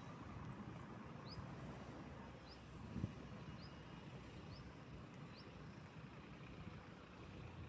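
Quiet outdoor ambience on the move: a low rumble with a soft thump about three seconds in, and faint short rising chirps about once a second.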